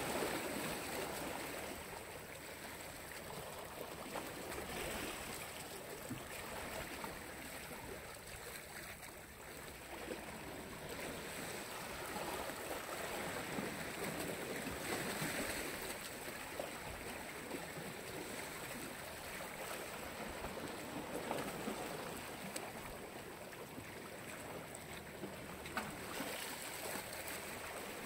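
Black Sea waves washing onto the shore, the sound surging and fading every five to eight seconds.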